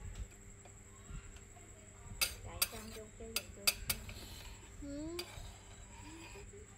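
Eating utensils clinking and knocking against dishes, in a handful of sharp clinks bunched between about two and four seconds in.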